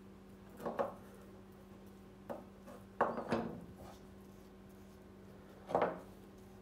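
Steel throwing knives handled and wiped with a cloth on a wooden table: four short scrapes and knocks, the loudest about three seconds in, over a steady low hum.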